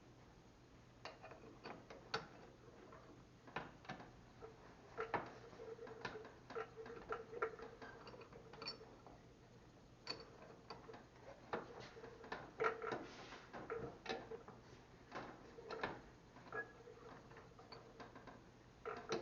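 Light, irregular clicks and taps of small metal parts and tools being handled on a workbench.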